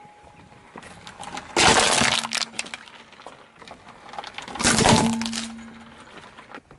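A car tyre rolls over and crushes an aluminium soda can about a second and a half in. Near five seconds it crushes a hard plastic toy fish, which cracks and breaks apart. These are two loud crushing bursts, each lasting about half a second.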